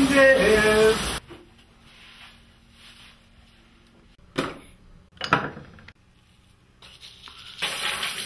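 A woman's singing breaks off about a second in, leaving a quiet stretch with two short knocks a second apart, then a burst of noise near the end.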